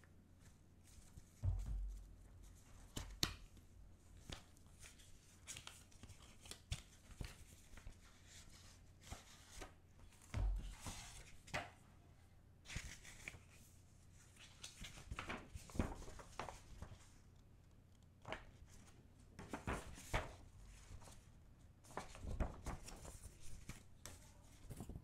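Gloved hands handling album packaging and stiff printed cards: a steady run of paper rustles, slides and light taps as cards are lifted out, shuffled and laid down, with two dull thumps about a second and a half in and again about ten seconds in.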